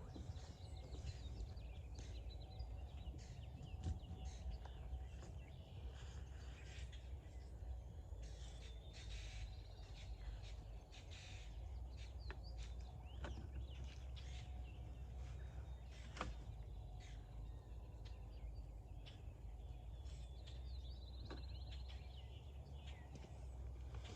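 Outdoor ambience with birds calling over a steady low rumble, with a few short sharp clicks and knocks scattered through.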